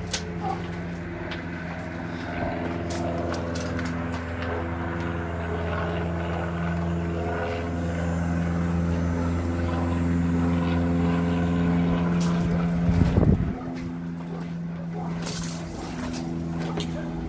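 Steady mechanical drone of a running machine, one low hum with several even overtones. A brief loud rumble about thirteen seconds in, with a few light clicks.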